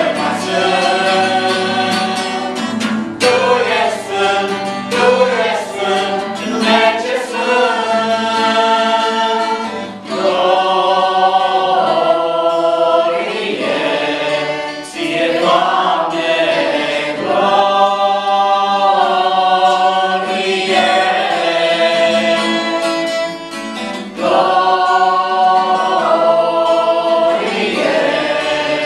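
A small group of men and women singing a worship song together in Romanian, with acoustic guitar accompaniment. The phrases are sung with long held notes and brief breaths between lines.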